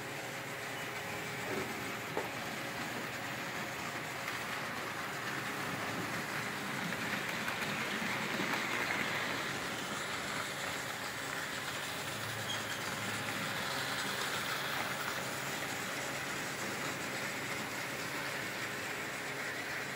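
OO scale model trains running on the layout's track: a steady whirr of small electric motors and wheels on the rails. It gets somewhat louder for a few seconds near the middle, with one short click about two seconds in.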